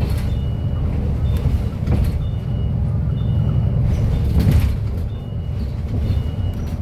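Cummins diesel engine of a King Long KL6112U1 city bus running under way, heard on board as a steady low rumble. A few body knocks or rattles and intermittent short high beeps sound over it.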